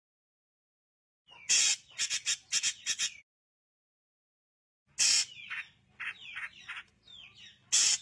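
Drongo calling in two bursts, about a second and a half in and again at about five seconds. Each burst mixes loud, harsh notes with quick short calls, and the second has several short downward-sliding whistles.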